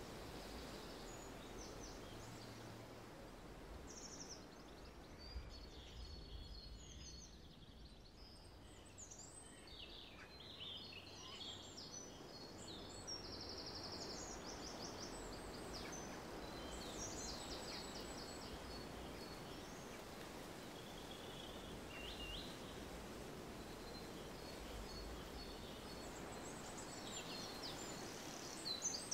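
Quiet outdoor ambience: small songbirds chirping and trilling on and off, with bouts of fast repeated notes, over a steady low background rumble.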